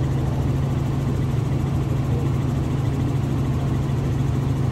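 Robinson R44 helicopter in flight, heard from inside the cabin: the steady drone of its piston engine and two-bladed main rotor, a low hum with a fine, even pulse.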